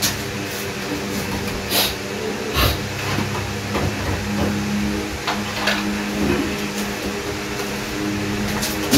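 A steady low machine hum, with a few scattered clicks and knocks about two, two and a half, and five and a half seconds in.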